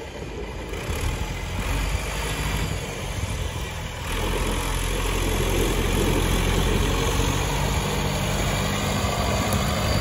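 Ford 7810 tractor's six-cylinder diesel engine running as it pulls a grain trailer past at low speed, growing louder about four seconds in as it comes closer.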